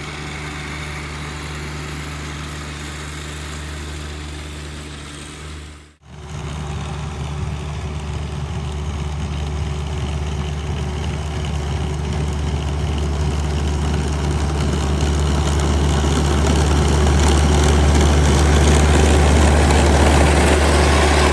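John Deere 1025R compact tractor's three-cylinder diesel engine running steadily while its front-mounted snowblower throws snow. The sound breaks off briefly about six seconds in, then comes back and grows louder as the tractor draws closer.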